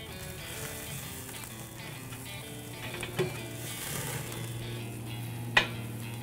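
Thick ribeye steaks sizzling as they sear on the grate over a hot hickory and lump charcoal fire. Two sharp clicks of steel tongs on the grate, one about halfway and a louder one near the end.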